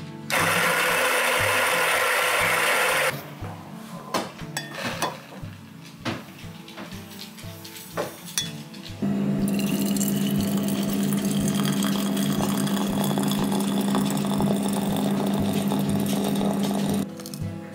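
Electric burr coffee grinder running: a short spell near the start, then clicks and knocks, then a longer steady run with a low hum and a faint whine that slowly rises in pitch until it stops shortly before the end.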